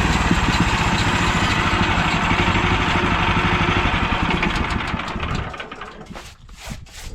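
Sawmill engine running steadily, then dying away about five seconds in as it winds down. Near the end, a quick run of short scraping or brushing strokes starts.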